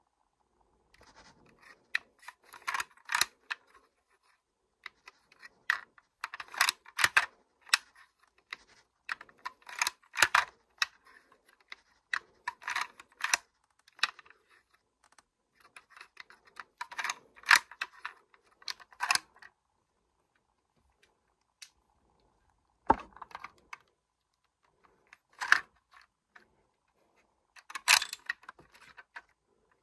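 The bolt of a LEGO-brick Kar98k replica being worked again and again: clusters of plastic clicking and clattering about every three seconds, with short pauses between them.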